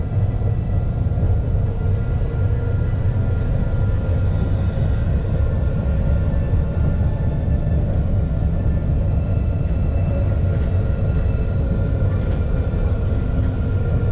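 Alstom Citadis low-floor tram running between stops: a steady low rumble of wheels and running gear, with faint steady tones above it.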